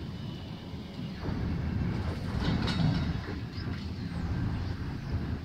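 Freight train's container flat wagons rolling past: a steady low rumble of wheels on the track, with a brief high squeal about two and a half seconds in.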